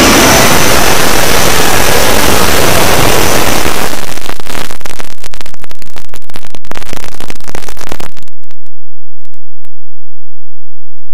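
Harsh, heavily distorted noise from many clip soundtracks overlaid at once, clipped at full volume into a static-like cacophony. About four seconds in it breaks up into crackling, and from about eight seconds only sparse clicks remain.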